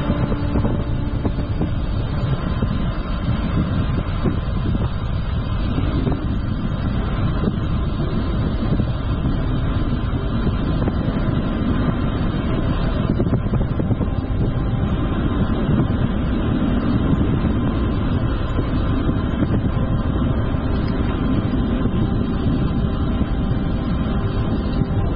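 Steady low wind rumble on an action camera's microphone while cycling along a road.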